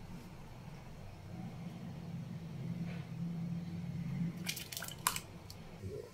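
Faint liquid sounds from a large metal pot of hot milk over a low steady hum, then a metal spoon clinks against the pot several times about four and a half seconds in as the milk is stirred.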